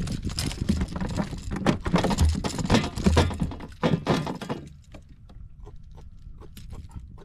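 A freshly caught jack being handled on a plastic fishing kayak, knocking and thumping against the deck: a dense run of knocks and rattles that drops off about four and a half seconds in to scattered light clicks.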